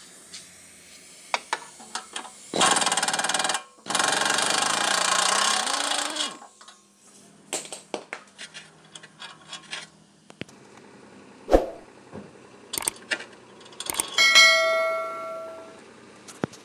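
Two bursts of a power impact wrench loosening the silencer-to-manifold bolts, the first about a second long and the second about two seconds long. Scattered metal clicks follow, and near the end a piece of metal rings briefly.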